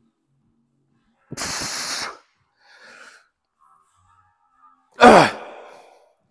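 A man straining through a heavy set of cable bicep curls: a forceful hissing exhale about a second in, then a loud grunt that falls in pitch and trails off near the end.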